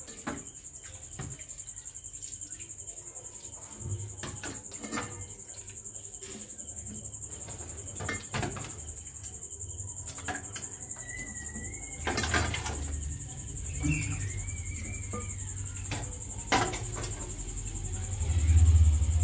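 Raw chicken pieces being squeezed out of a vinegar marinade by hand and dropped into a steel pot: soft wet handling with scattered clicks, and a loud low bump near the end. A cricket's steady high trill runs underneath.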